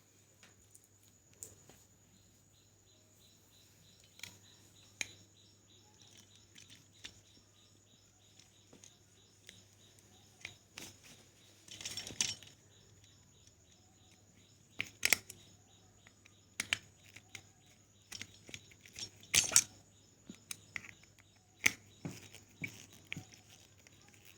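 Irregular small clicks, taps and scrapes of hand work while a phase wire is fitted into the terminals of a plastic plug board, with a few sharper knocks in the second half over a faint steady hum.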